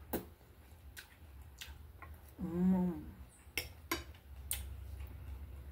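Eating sounds: a metal spoon clicking against a plate and chewing, with scattered sharp clicks. A short closed-mouth hum of 'mmm' comes about two and a half seconds in.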